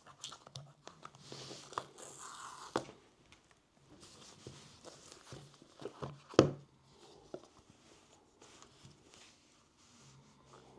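Cardboard iPhone box being unsealed and opened by hand: a ripping sound for the first few seconds as the paper seal strips are torn off, then scattered small clicks and scrapes of the cardboard, with one sharp knock, the loudest sound, about six seconds in as the box is handled on the desk.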